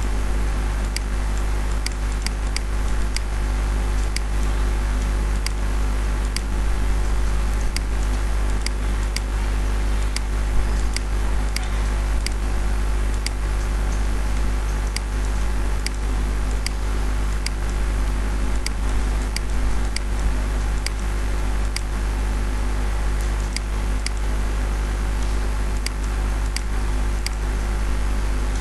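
Steady low electrical hum and hiss, with faint sharp mouse clicks at irregular intervals, about one or two a second.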